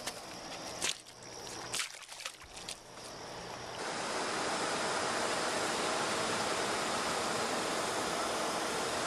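A few sharp knocks in the first couple of seconds, then, about four seconds in, a steady rushing noise sets in and holds evenly.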